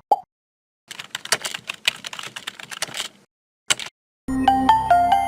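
Rapid computer keyboard typing, a quick run of key clicks lasting about two seconds, with a short blip at the start and another click-like blip a little after the typing. Near the end, music comes in with a low steady tone and a few pitched notes.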